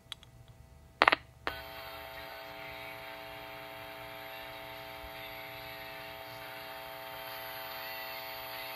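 A sharp pop as the signal-tracer probe makes contact at the grid of the 12SA7 converter tube, then the signal tracer's speaker gives a steady hum with hiss: the input signal picked up at that grid.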